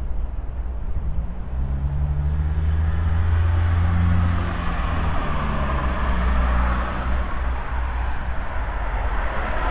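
A car passing on a wet street: a low engine hum, strongest a few seconds in, over a steady hiss of tyres on the wet road.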